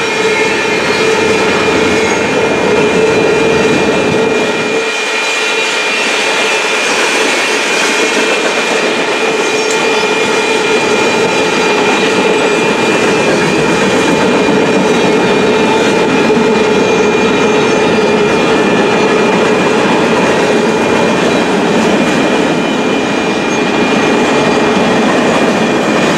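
Freight cars of a Union Pacific manifest train rolling steadily through a grade crossing. The crossing's electronic bells ring throughout.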